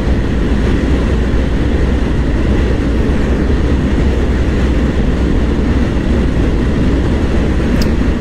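Steady rumble of wind buffeting the microphone over the engine and road noise of a Honda PCX 160 scooter cruising at about 115 km/h.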